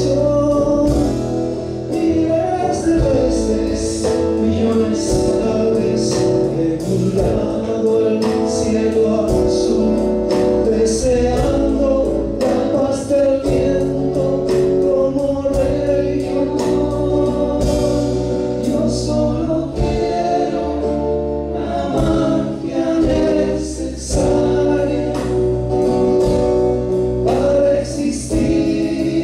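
Live band playing a song: acoustic guitar, bass and drum kit with cymbal strokes, under voices singing together.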